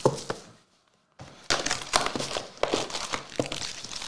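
Cellophane shrink wrap on trading-card hobby boxes crinkling and crackling as the boxes are handled, with sharp little taps and clicks. The sound cuts out completely for about half a second near the start.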